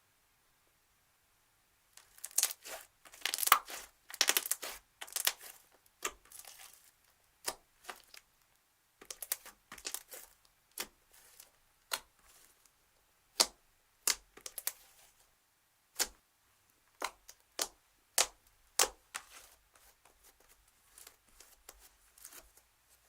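Slime being squeezed and poked by hand, giving irregular crackles and sharp pops. It starts about two seconds in, crackles in thick clusters at first, then thins to scattered single pops.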